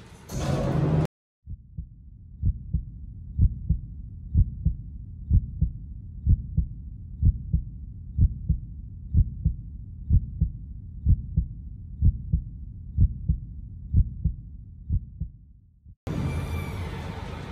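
A heartbeat sound effect: paired low thumps, lub-dub, about once a second, fading out near the end. A loud rushing noise cuts off abruptly about a second in, and steady noise starts again suddenly near the end.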